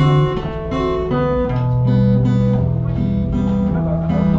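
Live band playing the instrumental introduction to a love song: changing chords over held low notes, before the vocals come in.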